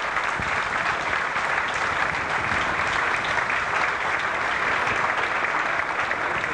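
A crowd of guests applauding with steady, dense clapping.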